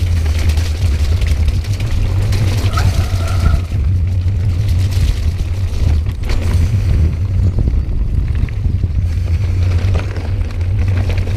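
Wind buffeting the action camera's microphone over the rumble of tyres on a dirt trail and the clatter and rattle of a Calibre Bossnut mountain bike on a fast rough descent, with a short squeak about three seconds in.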